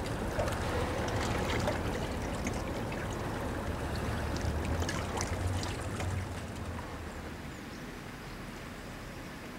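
River water lapping and splashing at the edge of the Rhine, small splashes over a low, steady rumble. The sound drops to a quieter, even background about six seconds in.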